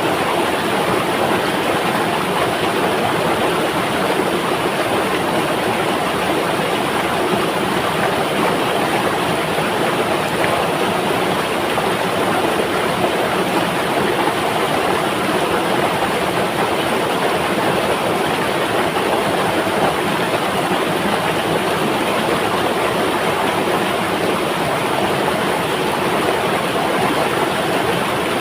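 River water flowing, a steady unbroken rush with no changes.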